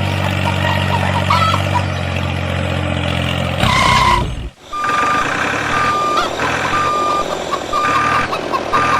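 Truck engine idling steadily, then a short loud blast with a hiss, followed by a reversing alarm beeping about once a second over a lower engine murmur.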